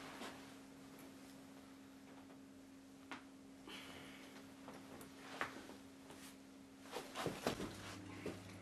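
Quiet room tone with a steady low hum, broken by scattered faint clicks and rustles of a person shifting on a leather sofa, and a short cluster of louder knocks about seven seconds in.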